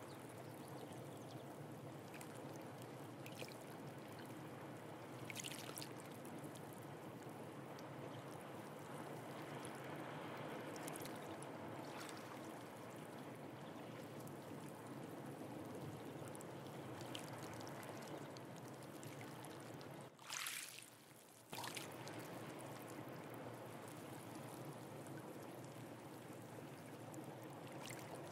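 Sea water washing and trickling among shoreline rocks in a steady low wash, with a few short hissy splashes. About two-thirds of the way through, a brief hiss comes and the wash drops away for about a second and a half, then returns.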